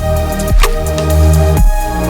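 Background music: electronic music with sustained synth chords, deep bass and a drum hit about every second.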